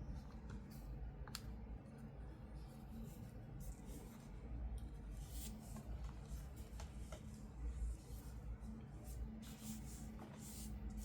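Faint scattered clicks and short rustles of toy packaging being handled and opened, over a low steady hum.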